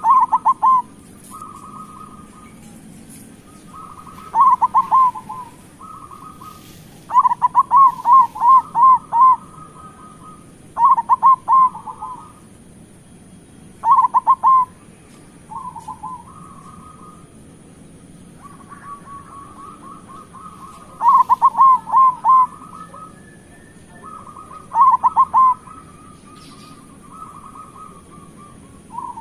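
Zebra dove (perkutut) cooing in repeated phrases of quick rolling notes, about eight phrases with pauses between them, several led in by a softer held note.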